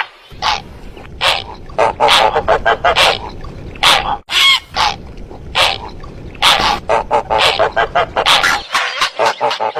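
Recorded heron calls played as a hunting lure: a run of short, harsh, honking squawks, roughly two a second, over a low steady hum that stops near the end.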